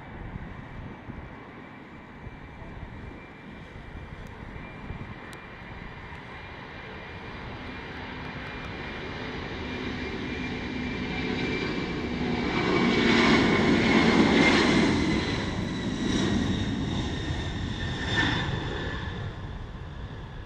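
Boeing 747-400 freighter's four jet engines at takeoff power during the takeoff roll: a rumble with a high turbine whine that swells to its loudest about two-thirds through as the jet passes. The whine drops slightly in pitch as it goes by, then the sound eases off.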